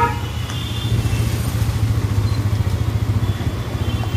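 Motorcycle engine running steadily at low road speed, heard from the rider's seat as a constant low drone.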